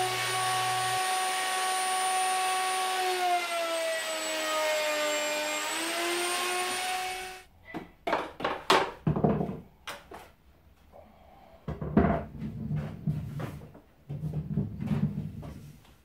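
Electric plunge router on a circle jig running with a steady whine while routing MDF, its pitch sagging under load for a few seconds before it cuts off suddenly. Then several irregular knocks, thumps and scrapes as wooden wheel blanks are handled on the bench.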